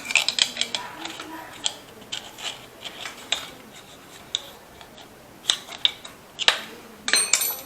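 Scattered metal clicks, knocks and scrapes of hand tools and parts being handled during the teardown of a motorcycle engine's cylinder and head, with a short metallic ring near the end.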